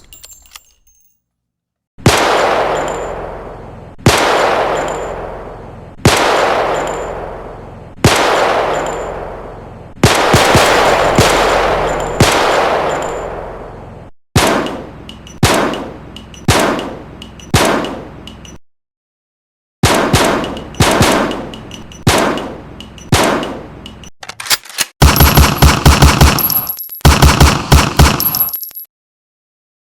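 Gunshot sound effects. First single shots about two seconds apart, each with a long echoing tail, then quicker groups of shots, and near the end rapid automatic-fire bursts.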